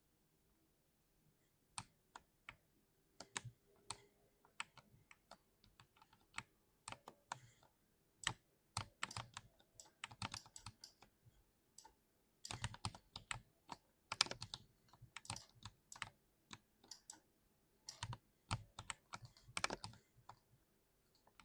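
Typing on a mechanical keyboard. The keystrokes come singly at first, about two seconds in, then in quick irregular flurries.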